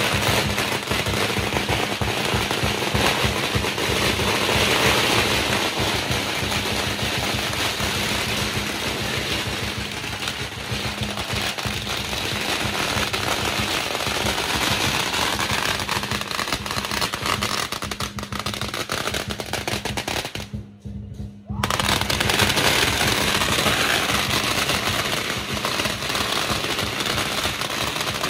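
A long string of firecrackers going off in a continuous rapid crackle, over lion dance drumming and cymbals. It cuts out for under a second about three-quarters of the way through, then carries on.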